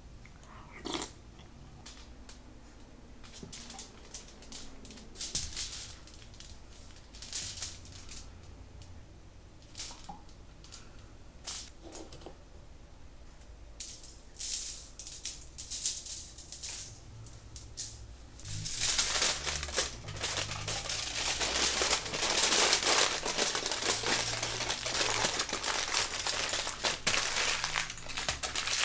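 Kitchen handling sounds: scattered light clicks and taps, then from about 19 seconds in a dense, steady crackling rattle, over quiet background music.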